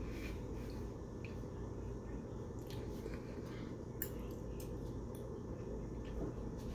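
Steady low room hum with a few faint clicks and rustles, one sharper click about four seconds in.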